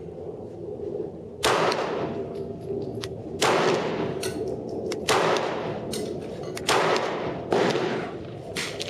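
Glock 23 pistol with a 9mm conversion barrel fired in slow aimed shots, about five shots one to two seconds apart, each a sharp crack with a short ringing tail.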